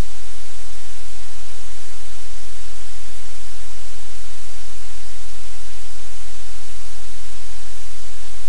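Loud, steady static hiss with a low electrical hum underneath: noise on the audio feed that buries any sound from the room.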